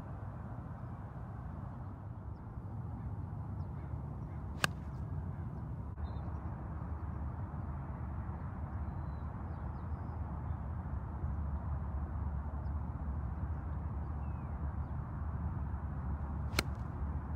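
Golf club striking a ball off grass twice, each a single sharp click, the first about five seconds in and the second near the end. A steady low rumble and a few faint bird chirps lie beneath.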